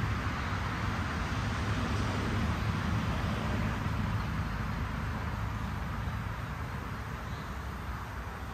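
Steady outdoor noise with a low rumble and no distinct events, fading slightly near the end.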